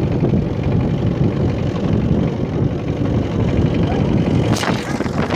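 Motorboat engine running steadily, a loud low drone. There is a brief sharp sound near the end.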